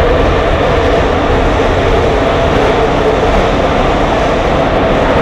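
Loud, steady running noise inside a Soviet-built metro car moving through a tunnel: a low rumble of wheels on rail with a droning tone from the running gear.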